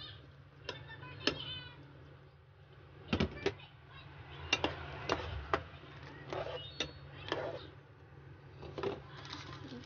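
Irregular knocks and clinks of a plate and a ceramic spoon against an aluminium pot as chopped eggplant and okra are tipped into coconut milk and stirred, the loudest pair of knocks about three seconds in. A steady low hum runs underneath.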